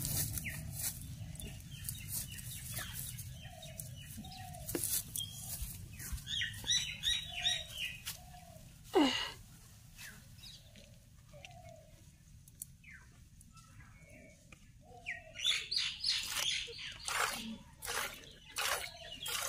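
Birds chirping and calling outdoors, in short repeated calls with busier bursts about a third of the way in and again near the end, and one falling call about halfway. Scattered soft clicks and rustles sound between the calls.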